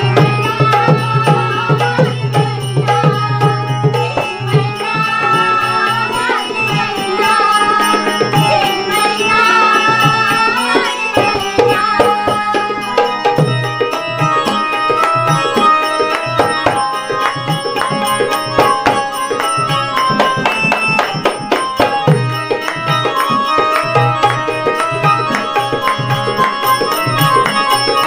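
Instrumental interlude of a Marathi folk song: an electronic keyboard plays a gliding melody over a steady drone, with dholki drum strokes and small brass hand cymbals (manjira) keeping the rhythm. The melody is most prominent in the first half.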